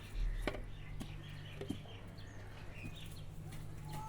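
Chickens clucking and chirping faintly, with a few sharp ticks over a steady low hum.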